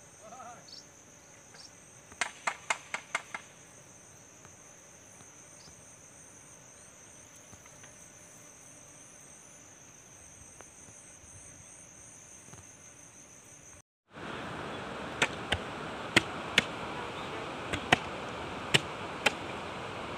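Insects trilling steadily at a high pitch, with a quick run of about six clicks two seconds in. After an abrupt cut, about fourteen seconds in, hoe blades strike the soil in sharp knocks roughly twice a second.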